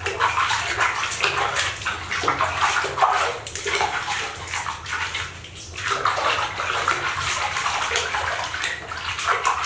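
Water splashing and sloshing in a plastic basin as a hand scoops and pours water over a baby monkey being washed, in uneven splashes with short lulls.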